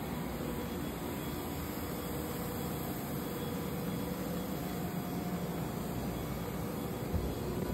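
Steady mechanical hum with a hiss and faint steady whining tones, like machinery or ventilation running, with a brief low bump about seven seconds in.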